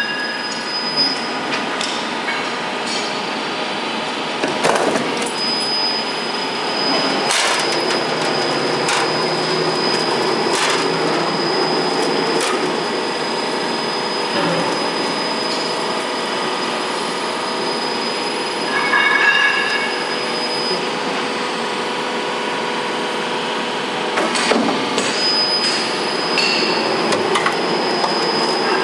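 Door frame roll forming machine running: a steady mechanical clatter from the forming rollers and drive, with a thin high whine over it and a few sharp metallic knocks here and there.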